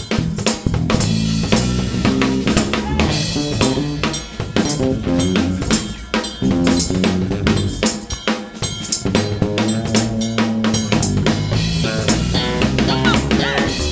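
A live soul band playing: drum kit with bass drum, snare and rim shots driving a steady groove under bass and other instruments, with no singing.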